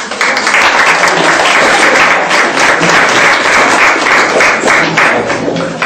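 Audience applauding loudly: many hands clapping that start suddenly and die away near the end.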